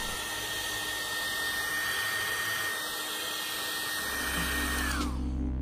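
Handheld hair dryer blowing steadily while heating a phone's screen, with a high motor whine that holds one pitch. A little after five seconds in, the whine drops in pitch and the airflow dies away as the dryer winds down.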